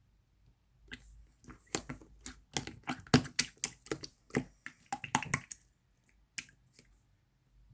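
Toy slime being squeezed and pressed by hand, giving a quick series of sharp clicks and pops for several seconds, then a few scattered pops near the end.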